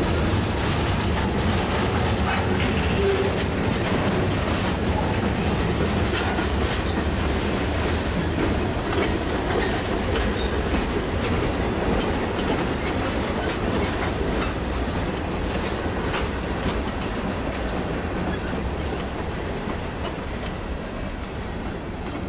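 Freight train of log-loaded flatcars, tank cars and a covered hopper rolling past at close range, a steady rumble of steel wheels on rail with scattered clicks. It slowly fades over the last few seconds as the end of the train goes by.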